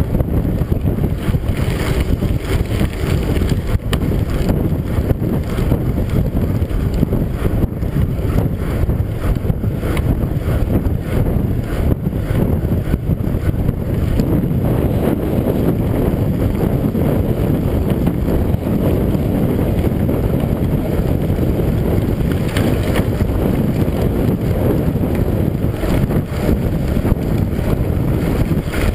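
Mountain bike riding over a gravel road with wind on the microphone: a steady low rumble of wind and tyres on gravel, with many small ticks and rattles from the bike.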